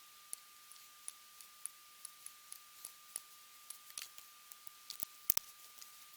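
Light, irregular clicks and taps of small plastic model-kit parts being handled at the workbench, with a sharper double click about five seconds in. A faint steady high hum runs underneath.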